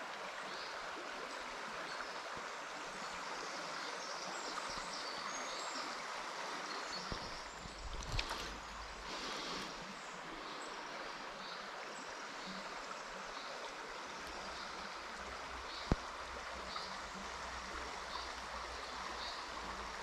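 River water flowing steadily over a shallow stony run. There is a brief low thump a little before halfway through and a single sharp click later on.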